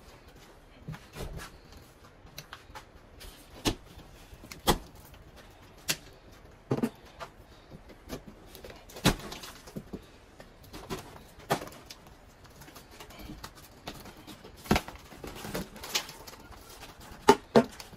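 Drywall being broken and torn off a wall by hand: irregular sharp cracks, snaps and knocks as pieces break away and fall, a dozen or so standing out louder than the rest.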